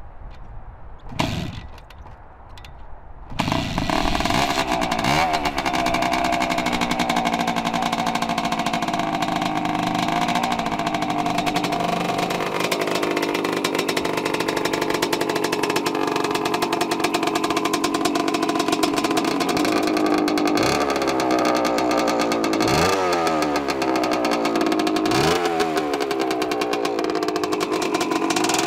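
1978 Harley-Davidson MX250's single-cylinder two-stroke engine being kick-started: a sharp kick about a second in, then it fires about three seconds in and runs, brought back to life. It keeps running with the throttle blipped several times, each rev rising and falling in pitch, three blips close together near the end.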